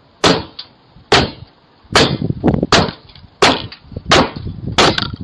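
A series of about eight sharp knocks or bangs on something wooden, irregularly spaced roughly one every half second to second.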